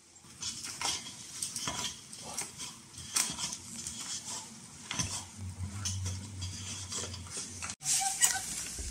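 Irregular small metal clicks and scrapes of a hand screwdriver driving screws through a small metal hinge into a wooden batten.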